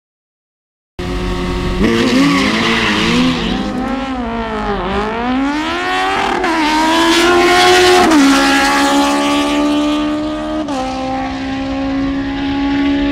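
Drag racing vehicle's engine revving up and down, then accelerating hard, its pitch climbing and dropping back at each gear change, about three times. Silent for the first second.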